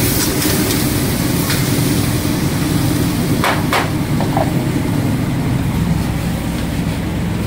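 Steady roar of a gas wok burner under an iron wok, with a steel ladle stirring and scraping the frying chilli chicken. Two sharp clanks of the ladle on the wok come about three and a half seconds in, followed by a lighter one.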